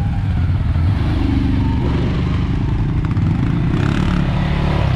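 CFMOTO CFORCE ATV engines running at low speed, a steady low rumble.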